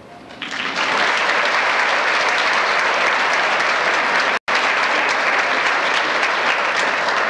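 Audience applauding, starting about half a second in and holding steady, with a split-second break in the sound a little past the middle.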